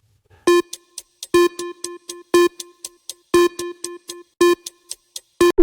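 Quiz countdown-timer sound effect: a sharp pitched tick about once a second, with lighter ticks between, and a chime starting at the very end.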